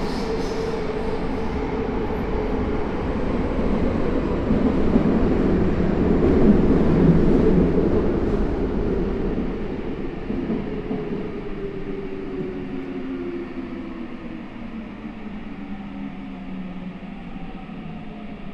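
Saitama Railway 2000 series subway train with a Mitsubishi IGBT inverter, heard from inside the car. Wheel and track noise builds to a peak about seven seconds in, then the motor whine falls steadily in pitch and the noise dies down as the train slows.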